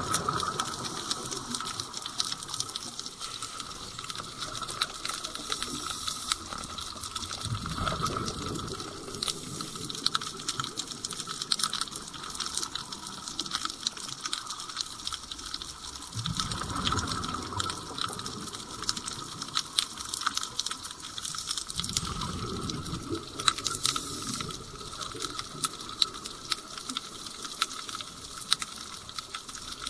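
A scuba diver's exhaled bubbles rushing up past the camera in bursts a couple of seconds long, about every six to eight seconds, the rhythm of regulator breathing. A steady crackle of fine clicks runs underneath.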